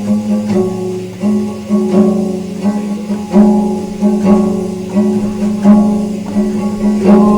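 Guitar playing a slow blues instrumental passage, a chord struck about every three quarters of a second over a held low note.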